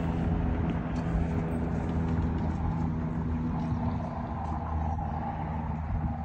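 A motor running steadily: a low rumble with a steady hum, and a higher whine that rises and holds through the second half.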